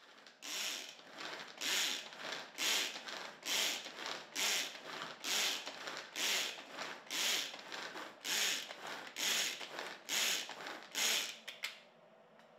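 Pull-cord manual food chopper being pulled again and again, about one pull a second: each pull gives a short whirring rattle as the ratchet spins the blades through the chopped vegetables. The pulls stop shortly before the end.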